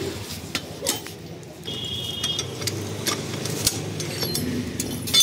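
Metal clinks and taps of a socket and wrench being fitted onto the drive-pulley nut of a scooter's CVT, with a brief high metallic ring about two seconds in.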